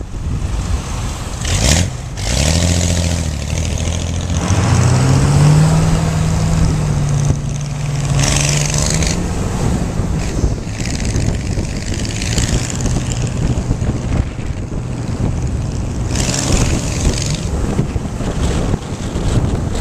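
Road noise heard from a moving car: heavy wind noise and tyre roar, with an engine note that rises in pitch about four seconds in, holds for several seconds, then sinks back into the wind. Brief rushes of noise come as oncoming cars pass, the strongest about eight and sixteen seconds in.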